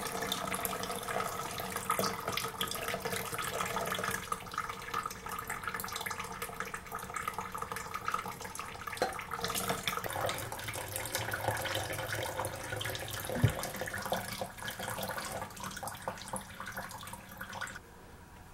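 Water running steadily from the Delphi H2 water ionizer's outlet and splashing into a container, with a single knock about two-thirds of the way through. The flow cuts off shortly before the end.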